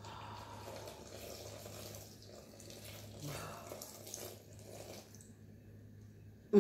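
Water pouring in a thin stream from a glass measuring cup into a plastic mixing bowl of dry pancake mix. It trails off about five seconds in.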